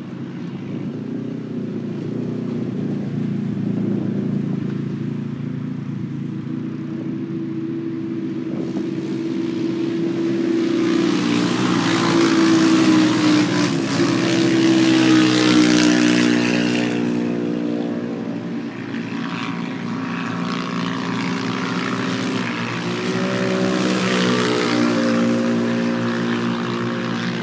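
Off-road race cars' engines running and revving as they pass, with the pitch rising and falling; the sound swells to its loudest about halfway through and swells again near the end.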